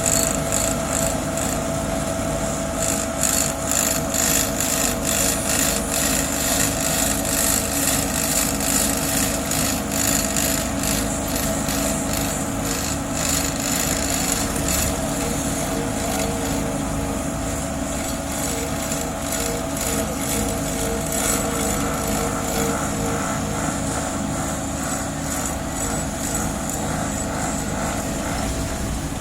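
Heavy diesel asphalt-paving machinery running steadily at work, with a fast rhythmic clatter through the first half that settles into a steadier hum with a constant whine.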